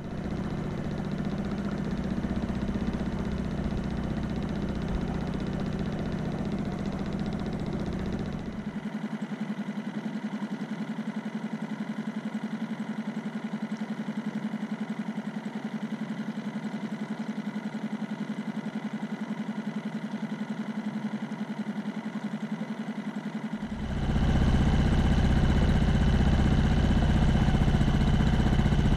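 Small outboard motor on an inflatable dinghy running steadily under way. It gets louder and fuller about five seconds before the end.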